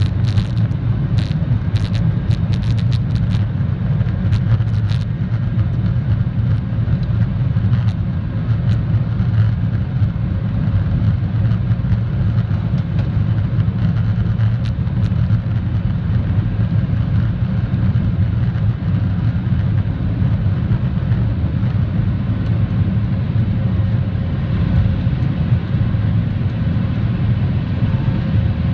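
Cabin sound of a Boeing 737 jet airliner taking off: a loud, steady low rumble of the engines at takeoff thrust, running from the takeoff roll into the climb. Sharp clicks and rattles come in the first few seconds while the plane is on the runway.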